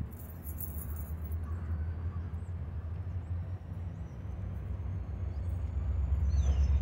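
Diesel locomotive engine running with a steady low rumble that grows louder over the last couple of seconds. A faint high whine rises slowly in pitch above it.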